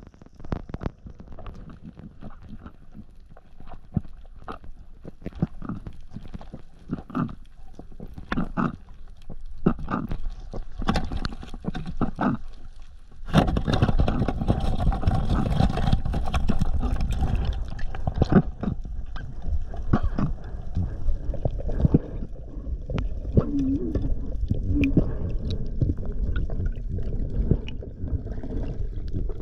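Muffled underwater sound heard through a camera's waterproof housing: scattered clicks and knocks at first, then, about 13 seconds in, a sudden, louder and steady gurgling rush of water and bubbles.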